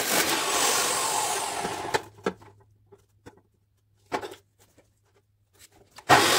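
Makita abrasive cut-off saw grinding through 2.5-inch exhaust pipe, the cut ending and the noise dying away about two seconds in. A few knocks follow as the pipe is shifted in the vise, and the saw's grinding starts again near the end.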